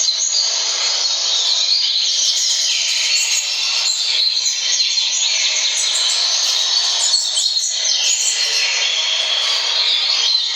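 Double-collared seedeaters (coleiros) singing fast, continuous chirping song with several voices overlapping: a played tournament-song recording with a caged male answering it.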